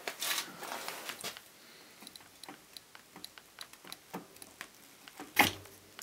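Small clicks, rattles and rustles of bicycle parts being handled at the bottom bracket, with one sharp knock near the end.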